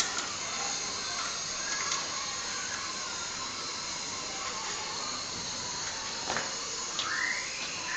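Water boiling in a metal pot, a steady hiss with a few faint clicks. A short rising tone comes about seven seconds in.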